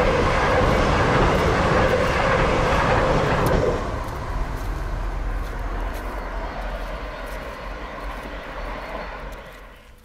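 Electric passenger train running past on the line below, a loud steady rush of wheels and motors that drops sharply about four seconds in and then fades away.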